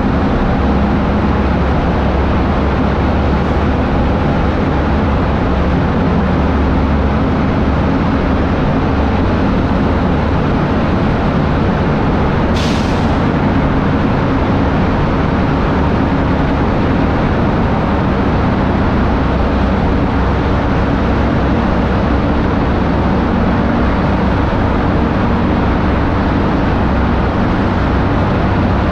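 Motorcycle engine running at a steady cruising speed inside a road tunnel, with wind and road noise. A short high hiss sounds about twelve seconds in.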